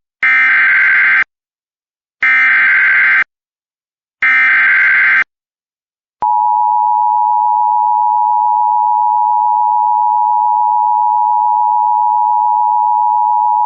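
Emergency Alert System SAME header: three buzzy data bursts of about a second each, with a second's gap between them. About six seconds in, a steady attention tone starts and holds, marking the start of a new warning.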